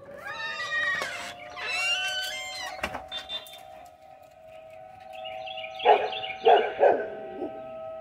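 Outdoor tornado warning siren holding a steady tone. A dog howls twice over it in the first three seconds, then barks several times near the end.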